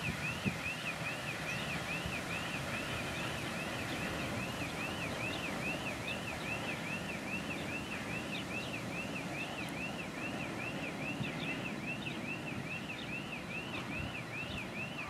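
Distant 3TE10M diesel locomotive rumbling low under load. Over it, a high warbling chirp repeats steadily about three times a second.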